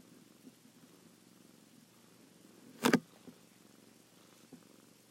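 Quiet room tone with one sharp bump from a hand handling the iPad about three seconds in, followed by a couple of faint ticks.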